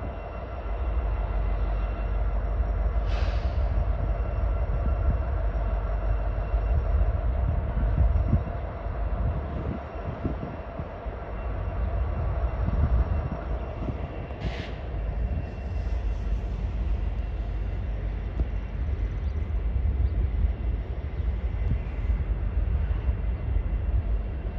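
Union Pacific double-stack intermodal freight train, a steady heavy rumble with several steady tones over it. Two brief high sounds stand out, one a few seconds in and one about halfway.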